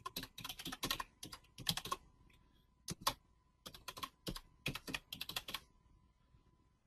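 Typing on a computer keyboard: quick runs of keystrokes in several bursts with short pauses between them, stopping about a second before the end.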